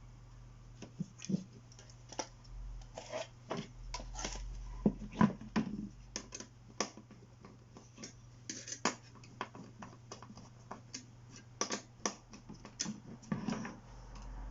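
Irregular small clicks, taps and scrapes of computer hardware being handled and fitted, with a few louder knocks, over a steady low hum.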